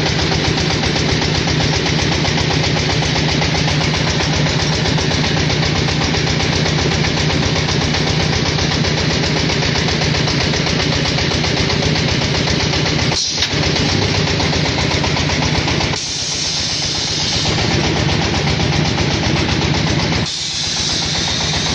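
Diesel engine running steadily under load, driving a clay brick extruder and its cutter and conveyor, with a fast, even firing rhythm and machine clatter. The sound drops abruptly twice in the second half.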